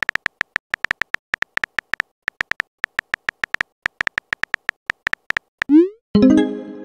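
Texting app's keyboard sound effect: rapid typing clicks, several a second, as a message is typed, then a short rising swoop as it is sent, followed by a louder chime-like tone that fades near the end.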